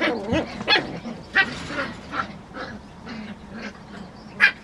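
San'in Shiba puppies play-fighting: a string of short, high yaps and squealing yelps, with one sharp yelp near the end.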